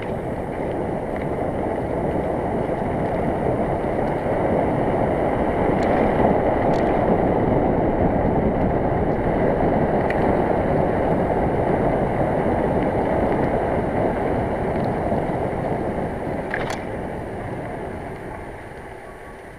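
Wind rushing over the camera microphone of a moving bicycle, mixed with the rumble of its tyres on the lane. It builds over the first few seconds, holds, then dies away near the end as the bike slows.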